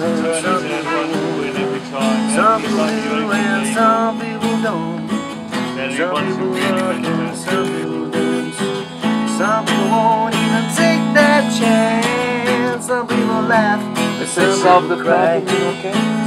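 Background music: a song with strummed acoustic guitar and a steady beat.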